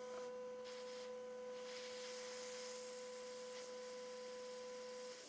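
Hot air rework station blowing over a circuit board to reflow the solder under a freshly placed chip: a steady whine with a hiss of air.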